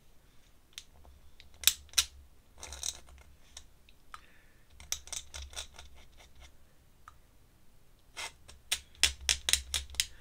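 Ink pen or brush tapping and scratching on drawing paper in short, sharp clicks, a couple around two seconds in, a cluster around five to six seconds, and a quick run of taps near the end.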